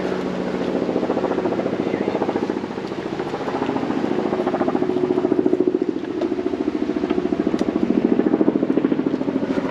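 Many honey bees buzzing loudly around an opened hive, the drone swelling and easing, with a few sharp clicks.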